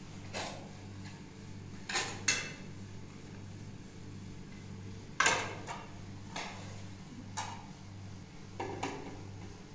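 Kitchenware being handled: a string of sharp clinks and knocks of utensils against dishes or pots, with a close pair about two seconds in and the loudest about five seconds in. Under it runs a faint low hum that pulses about twice a second.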